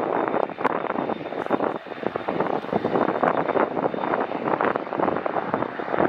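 Royal Navy AW101 Merlin helicopter running on the ground with its three turbines and rotors turning, a steady faint high whine over a gusty roar. Wind buffets the microphone, making the level rise and fall unevenly.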